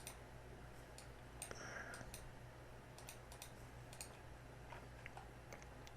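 Faint, scattered clicks of a computer mouse and keyboard at irregular intervals over a low steady hum.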